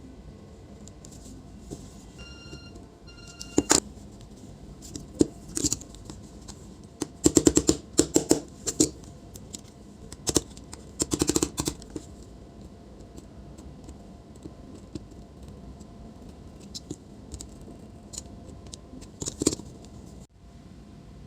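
Clicks, knocks and rattling clatter from a laptop's hinge parts and tools being handled and worked on while a bent hinge area is straightened. The clicks come in several clusters, the busiest a few seconds past the middle, and two short electronic beeps sound about two to three seconds in.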